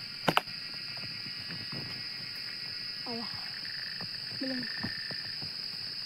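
Cicadas singing in the tree canopy: a steady, high-pitched insect drone. Two sharp clicks in quick succession shortly after the start are the loudest sounds.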